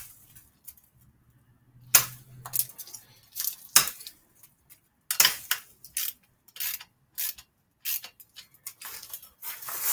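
Metal hand tools and bike parts clinking and clicking against each other: about a dozen sharp, irregular metallic knocks.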